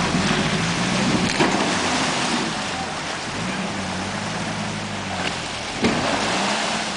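Four-wheel-drive engines revving up and down under load during a snatch-strap recovery of a Toyota LandCruiser from deep mud, with a steady rushing noise and two sharp knocks.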